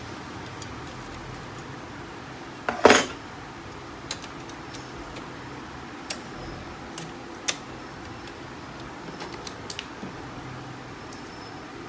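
Small metal parts and hand tools clinking and clattering during printer reassembly: one louder, ringing clatter about three seconds in, then scattered light clicks.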